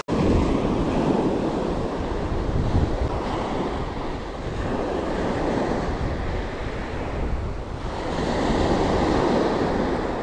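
Surf washing up a pebble beach, swelling louder near the start and again near the end, with wind buffeting the microphone.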